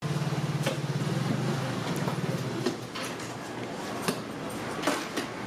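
A vehicle engine running with a low, fast-pulsing hum that fades after about two and a half seconds, then background noise broken by several sharp clicks and knocks.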